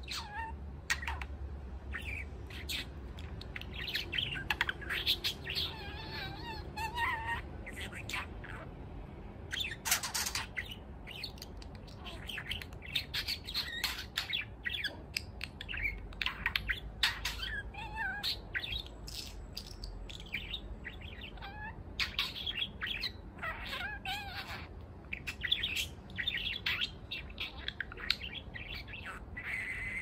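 A young male budgerigar warbling and chattering: a steady stream of short chirps, wavering warbles and sharp clicks, the running song that budgies mix their learned words into.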